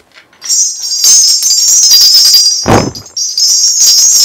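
Korean shaman's ritual bells shaken rapidly: a continuous bright jingling. It breaks off briefly about three seconds in, where a short low sound is heard, then starts again.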